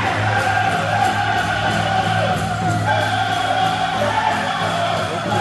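Powwow drum group singing a chicken dance song: high-pitched, wavering voices over a steady beat on the big drum.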